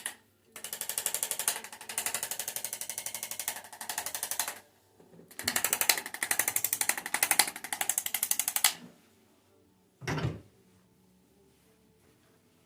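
A handheld percussive chiropractic instrument running over the back in fast, even clicks, about ten a second, in two runs of a few seconds each. A short dull thump comes about ten seconds in.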